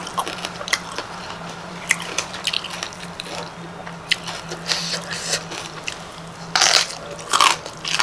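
A person eating: wet chewing and mouth clicks, then a few loud crunching bites of fresh raw vegetable a little past halfway.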